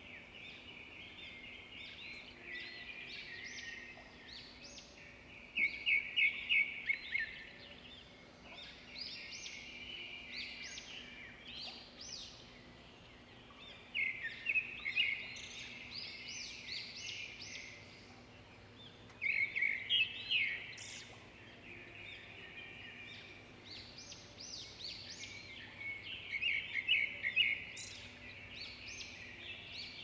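Birdsong: several birds chirping throughout, with louder bursts of rapid repeated trilling notes every several seconds.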